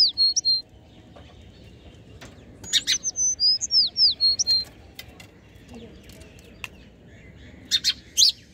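Sparrows chirping in bouts: a run of quick chirps and short falling whistles from about three to four and a half seconds in, with a short burst at the start and another near the end. A few faint sharp ticks fall between the bouts.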